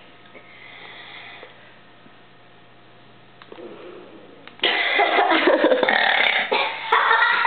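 A person's loud, drawn-out burp, starting about four and a half seconds in and lasting nearly three seconds, ragged and breaking into short pulses.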